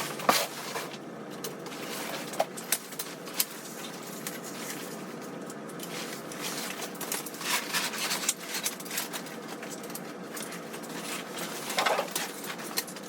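Handling of a folding pop-up waterfowl blind: a few sharp clicks from its metal frame and pins, then bouts of rustling from the ghillie fabric and frame being moved.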